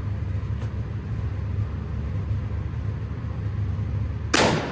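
A steady low rumble of background noise, then a single loud gunshot near the end, after which the sound drops away sharply.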